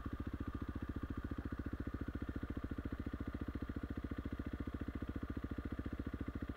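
Dirt bike engine idling at a standstill, a steady even putter of about ten beats a second.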